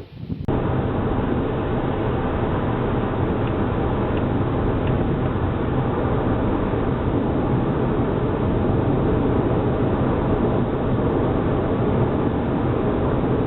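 Steady, loud rumbling noise of a running vehicle or engine, which starts abruptly about half a second in and carries on unchanged.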